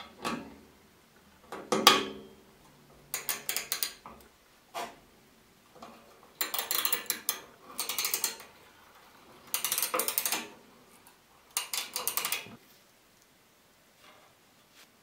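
Ratcheting combination wrench clicking in several quick bursts, each about a second long, as it works the small nut that clamps a compass cutter's blade. Two sharp metal knocks come in the first two seconds, the second the loudest.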